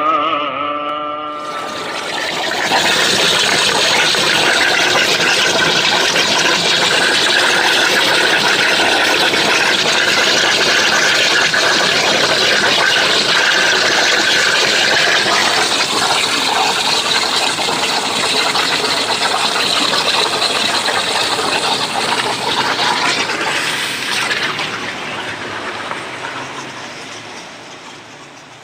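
Oxy-fuel cutting torch of a CNC gas cutting machine hissing steadily as it cuts, fading out over the last few seconds.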